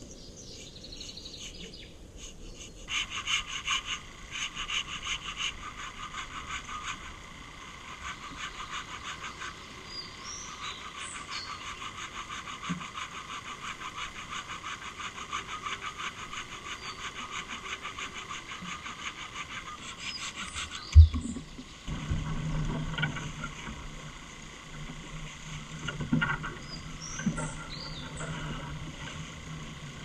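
Steady rhythmic rasping of a hand saw cutting through a fallen log, then a single heavy thump of wood hitting the ground, followed by lighter knocks of wood being handled. A few short bird chirps.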